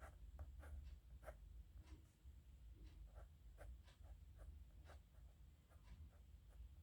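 Nib pen scratching across paper in short, irregular strokes, several a second, faint, over a low steady hum.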